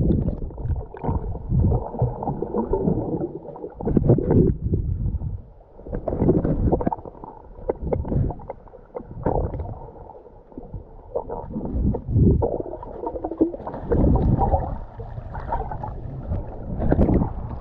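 Muffled sloshing and gurgling of sea water, heard with the camera under the surface, swelling and fading irregularly.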